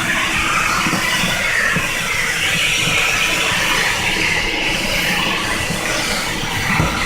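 Electrolux Silverado vacuum cleaner running at full suction. Its steady rushing air noise shifts up and down in pitch as it is used.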